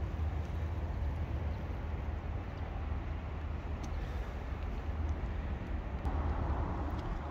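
Steady low rumble of outdoor background noise, growing slightly brighter about six seconds in.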